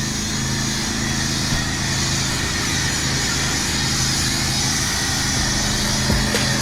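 Pressure washer running steadily, a small motor's hum under a continuous hiss of spray, for the touchless exterior wash.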